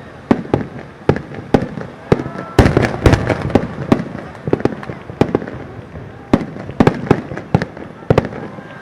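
Star mine fireworks barrage: a rapid run of shell bursts, sharp bangs coming about two or three a second at uneven spacing, each with a short echoing tail.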